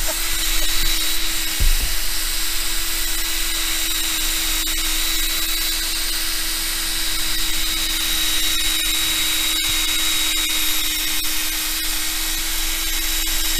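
Power drill running steadily, spinning a sanding disc against a wet plastic motorcycle windscreen to cut off its hazy, oxidised surface layer. A short bump about two seconds in.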